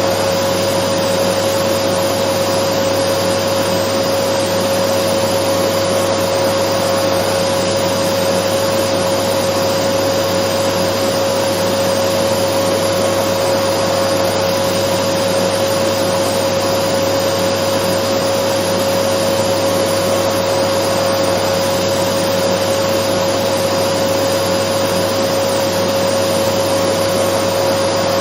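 Dyson vacuum cleaner running steadily: an even rush of air with a constant hum held on one pitch, unchanging throughout.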